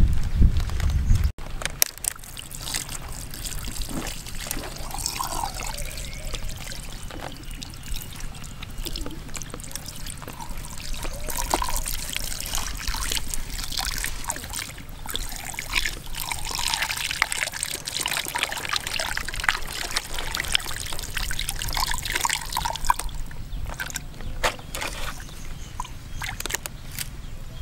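A thin stream of water trickling and splattering onto a gutted stingray as it is rinsed, with small wet clicks from its innards being handled.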